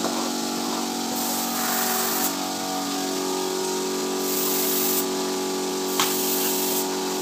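Paint spray gun hissing in several short on-off bursts over the steady hum of the air compressor or spray machine that feeds it.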